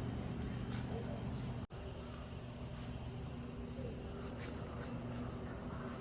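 Steady high-pitched chirring of insects, crickets or similar, over a low background rumble, with a momentary cut in the sound a little under two seconds in.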